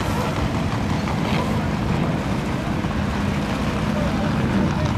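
Vehicle engines running steadily, with wind buffeting the microphone.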